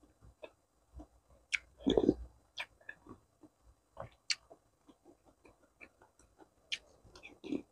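Close-miked eating sounds of bakso meatball soup with noodles: wet chewing, mouth smacks and scattered short clicks, with a louder slurp of noodles about two seconds in.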